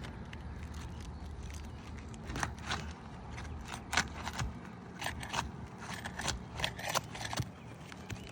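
Sealed asphalt roof shingles being pried apart, the sealant strip cracking and tearing loose in an irregular run of sharp crackles and scrapes that starts about two seconds in, over a low steady rumble.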